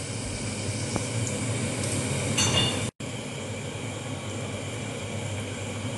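Martabak parcels deep-frying in hot oil in a wok, a steady sizzle. A metallic clink rings out about two and a half seconds in, and the sound cuts out for an instant just before three seconds, then the sizzle goes on.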